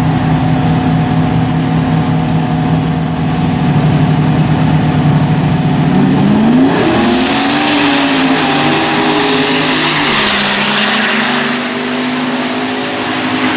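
Drag-race vehicle engines running steadily, then about six seconds in revving hard and accelerating away, the pitch climbing and dipping several times through gear changes before settling to a steadier, lower drone near the end.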